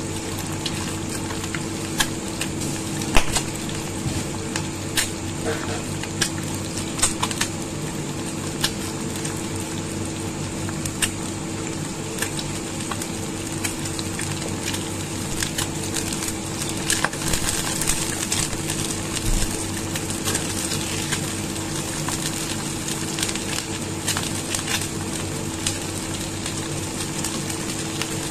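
Eggs frying in hot oil in a nonstick wok: a steady sizzle scattered with sharp pops and crackles of spitting oil, over a steady low hum.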